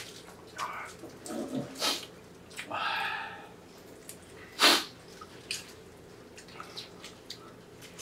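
Eating sounds of two people chewing roast pork belly and cold spicy noodles: scattered wet chewing and mouth noises, a short pitched sound about three seconds in, and one sharp click, the loudest sound, a little after the middle.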